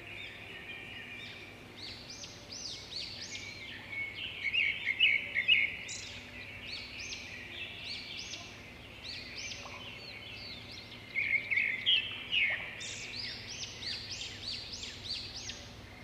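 Small birds chirping busily, many quick, high, repeated calls overlapping, over a faint low hum. The chirping grows louder about five seconds in and again around twelve seconds.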